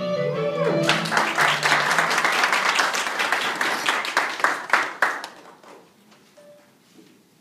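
Irish jig music stops within the first second, and an audience breaks into applause that lasts about four seconds before dying away.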